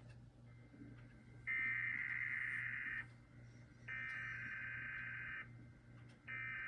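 Emergency Alert System SAME header: three identical bursts of buzzy, chirping data tones, each about a second and a half long with about a second between them, marking the start of a relayed EAS alert. A faint low hum runs underneath.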